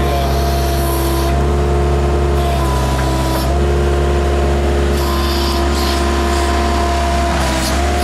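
Case Construction King backhoe loader's diesel engine running steadily while the backhoe bucket digs, with a whining tone over the engine hum that shifts in pitch about three and a half seconds in and again near the end as the hydraulics take load.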